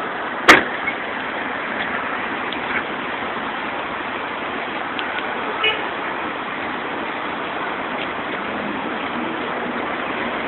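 Steady outdoor street noise with one sharp, loud bang about half a second in and a brief car-horn toot around the middle.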